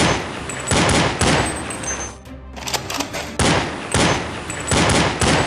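A string of about seven gunshot-like blasts, some in quick pairs, played over background music.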